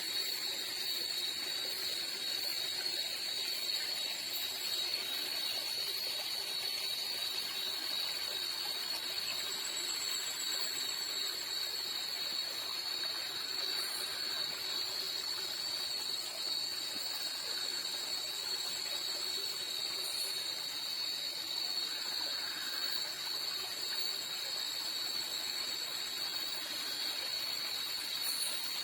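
Night insects chorusing: a continuous high-pitched drone that holds one steady pitch, with a fainter, higher tone above it and a soft hiss underneath.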